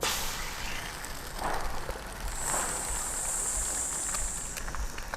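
An egg hitting a hot griddle and sizzling. The frying starts suddenly at the outset, and a steadier high hiss joins it for a couple of seconds in the middle.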